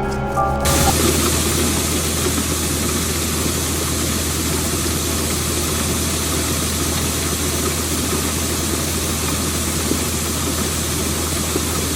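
John Deere 9860 STS combine's diesel engine running at a steady drone, with a constant low hum and an even machine rush over it. A stretch of music ends within the first second.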